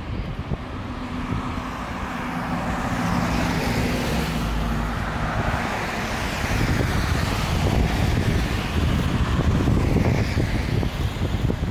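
Cars driving past on a wet road. Their tyre noise swells and fades as each goes by, once about a third of the way in and again later on.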